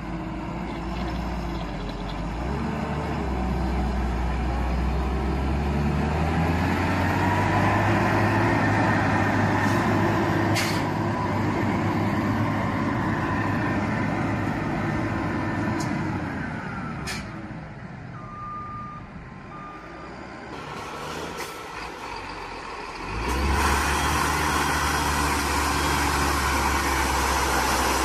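Heavy diesel road-construction machinery running under load, its engine swelling and then easing off. Two short beeps come a little past the middle, and near the end the sound jumps abruptly to another loud engine.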